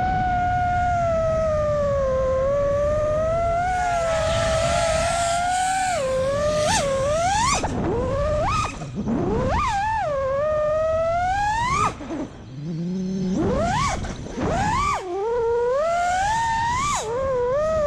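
FPV freestyle quadcopter's four Brotherhobby Avenger 2207.5 2350kv motors spinning HQProp J37 props: a steady whine whose pitch follows the throttle, held fairly even at first. From about the middle on it rises sharply several times with throttle punches and drops away briefly when the throttle is cut.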